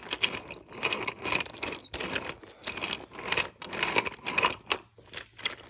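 Toy train cars clicking and rattling as a hand pushes them along a wooden track, a quick irregular clatter of several clicks a second.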